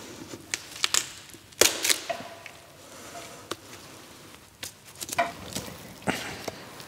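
A skinned deer carcass being butchered by hand: a few sharp cracks and snaps as the lower leg is worked at the joint, the loudest about one and a half seconds in.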